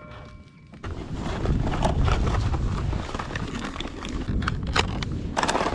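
Wind buffeting the camera microphone in a steady low rumble, with crinkling and clicking of a plastic lure packet being handled and a louder rustle near the end.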